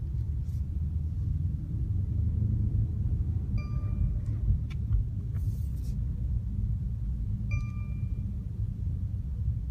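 Low, steady rumble inside the cabin of a 2016 Mercedes-Benz S550 Coupe driving slowly: its twin-turbo V8 and tyres. Two short electronic chimes sound about four seconds apart, near the middle and near the end.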